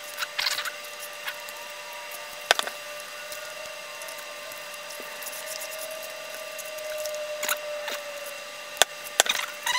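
A hand squishing and mixing lumpy pancake batter in a plastic mixing bowl: a few sharp clicks and taps against the bowl, strongest about two and a half seconds in and near the end, over a faint steady hum.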